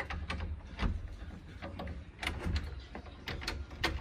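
Metal clicking and rattling of a key being worked in a wooden door's lock and its lever handle being turned, a run of small clicks with a sharper click near the end, over a low rumble.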